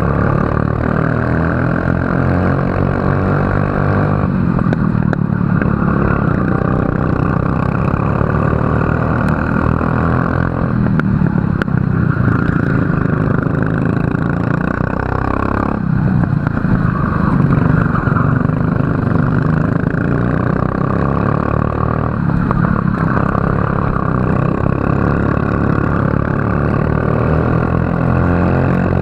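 Racing kart engine running hard. Its pitch drops and then climbs again several times as the kart slows for corners and accelerates out of them.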